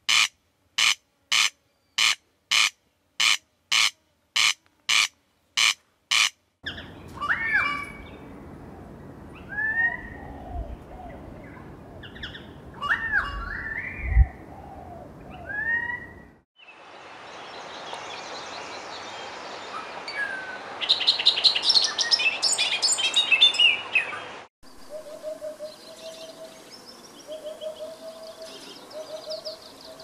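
A corn crake gives its harsh, rasping call over and over, about two a second. Then come other birds' calls, short gliding whistles and denser high calls, among them a currawong's. Near the end a hoopoe calls with low, soft notes repeated in short groups.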